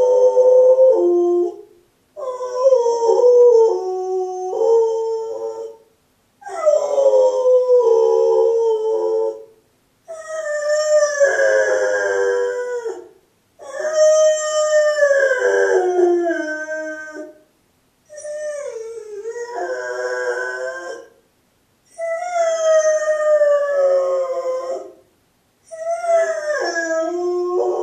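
A labradoodle howling over and over, about eight long wavering howls that each slide down in pitch, with short breaks between. This is the lonely howling of a dog left home alone.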